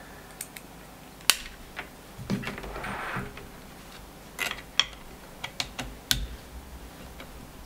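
Scattered sharp clicks and light taps of bolts and tools being handled while the CR-10's aluminium extrusion frame is fitted to its base, the loudest click about a second in, with a brief rustle near the middle.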